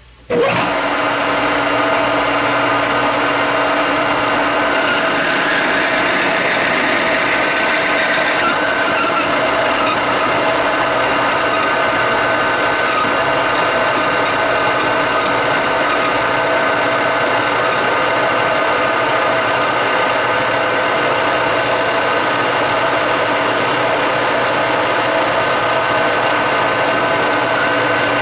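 Machine tool switching on and running steadily while cutting a metal part, a constant whine with a scratchy, rasping cutting noise over it.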